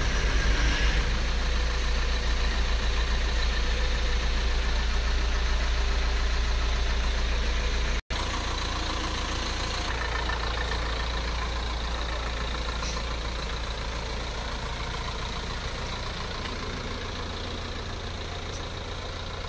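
Coach bus engine idling steadily with a deep, even hum. It cuts out for an instant about eight seconds in, then carries on slightly quieter, fading a little toward the end.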